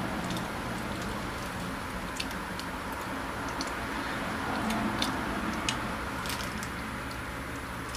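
Faint, irregular mouth clicks and smacks of someone chewing a bite of a brown sugar blondie, over a steady low hum.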